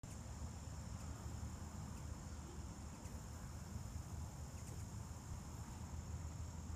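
A steady, high-pitched chorus of insects trilling, with a low rumble underneath.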